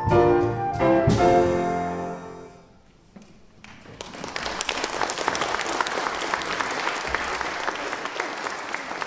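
The last chords of instrumental music die away, and about four seconds in an audience starts applauding, a steady clapping that keeps going.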